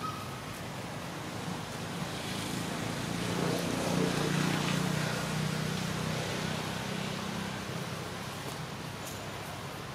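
A motor vehicle's engine passing at a distance, growing louder to a peak about four seconds in and then fading, over steady outdoor background noise.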